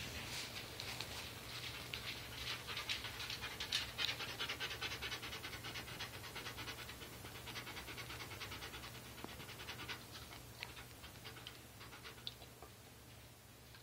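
A dog panting rapidly and steadily, fading out over the last few seconds.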